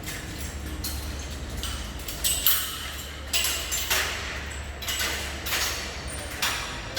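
Irregular metallic clanks and knocks, roughly one a second, some with a short ring, from steel scaffolding parts being taken apart.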